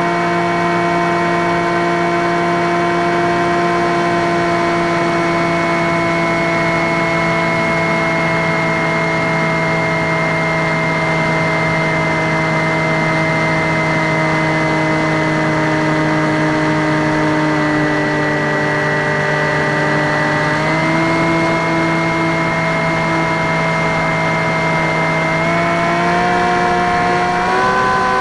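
Electric pusher motor and propeller of a Skywalker X5 flying wing, a steady whine with several tones that sags slightly in pitch, then steps up about two-thirds of the way in and rises again near the end as the throttle is opened.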